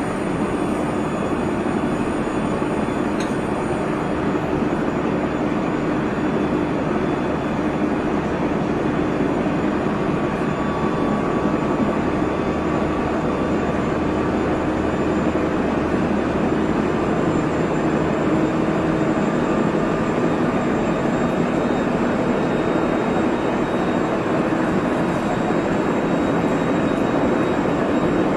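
Interior running sound of a JR Central 373 series electric train, the set F2 that the uploader labels as having an abnormal noise, running steadily between stations. There is a constant rumble of wheels on rail, with faint steady whine tones above it from the Toshiba VVVF traction equipment.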